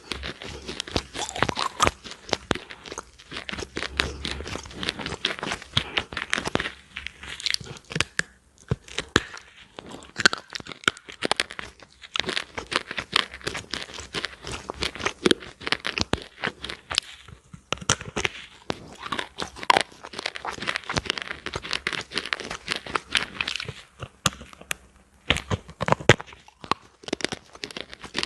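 Close-miked crunching and crackling as a brittle, flaky layered slab is bitten and crushed at the mouth: a dense run of sharp crackles with a few brief pauses.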